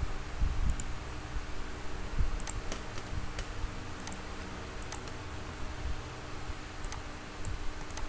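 Scattered sharp clicks from a computer mouse and keyboard, about ten spread irregularly over several seconds, over a low steady hum.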